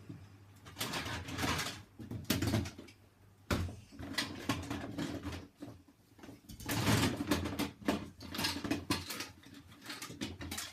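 Rummaging: irregular rustling, scraping and knocks of things being moved about and picked up, in uneven bursts with short pauses.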